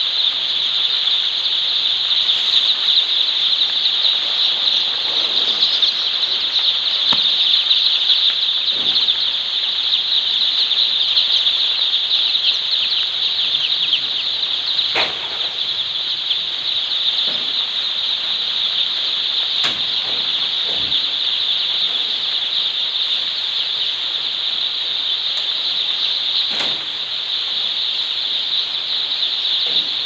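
Hundreds of day-old chicks peeping together in a continuous, dense, high-pitched chorus, with a few faint knocks in the middle and later part.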